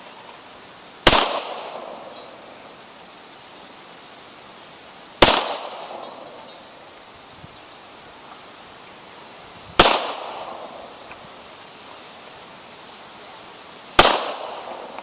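Four single 9mm gunshots, evenly spaced about four seconds apart, each with a short fading echo.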